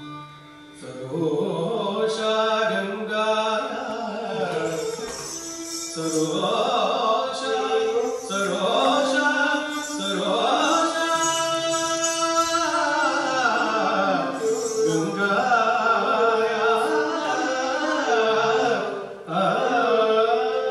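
Carnatic-style Bharatanatyam dance music: a singer's gliding, ornamented melody over sustained instrumental accompaniment, with a brief drop in level near the end.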